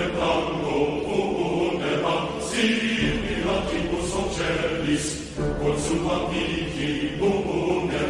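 Music: a remixed pop song with voices singing over pitched instruments and a bass line.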